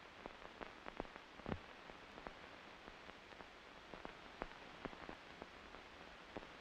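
Faint hiss with irregular sharp clicks and pops, the surface noise of an old film soundtrack. No launch or machine sound is heard.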